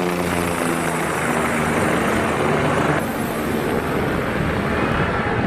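Aircraft engine passing, its tone falling slowly in pitch over a loud rushing noise. The sound changes abruptly about three seconds in.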